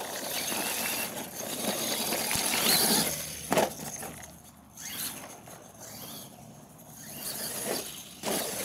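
Radio-controlled monster truck driving over rough dirt and grass, its motors and gears whining as the throttle comes on and off, with a sharp knock about three and a half seconds in.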